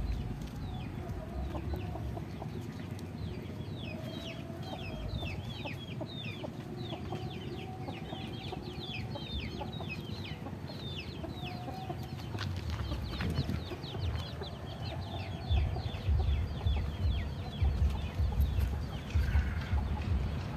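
Domestic fowl calling: a steady stream of short, high, falling peeps with lower clucking calls beneath. Over the last few seconds a run of low thumps and rumbles comes in, louder than the birds.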